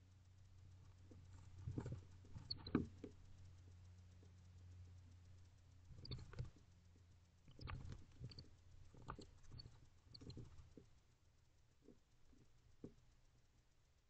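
Barn owls shifting and preening in a wooden nest box: bursts of scratchy rustles and clicks in a few clusters, then a couple of single ticks near the end, over a faint low hum.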